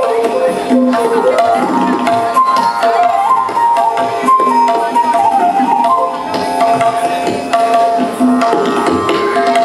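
Live Indian classical music: a bamboo transverse flute plays a melody with sliding notes, accompanied by tabla drums.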